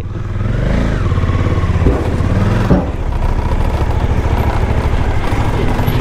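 Suzuki V-Strom 1050's V-twin engine running at low speed as the motorcycle rides up a ferry's steel loading ramp, with two short knocks about two and three seconds in.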